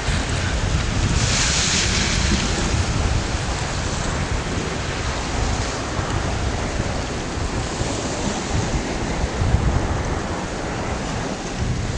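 Drift ice on the Vistula, floes and slush rubbing and grinding against one another as they flow past, a steady rustling hiss that swells about a second in. Wind buffets the microphone underneath with a low, uneven rumble.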